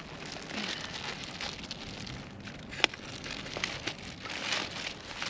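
Clear plastic wrapping crinkling and rustling as hands work at it around a packaged pop-up screen tent, in uneven swells, with a sharp click a little under three seconds in.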